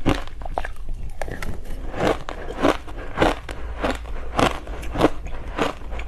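A mouthful of crushed ice being crunched between the teeth, one sharp crunch about every half second or so in a steady chewing rhythm.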